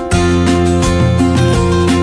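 Background music: strummed acoustic guitar with a bass line and a steady beat.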